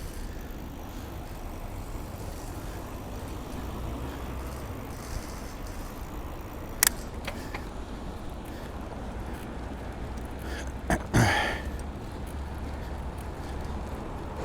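Bicycle being ridden, picked up by a microphone on the bike: a steady low rumble throughout, with a sharp click about seven seconds in and a couple of sharp knocks around eleven seconds.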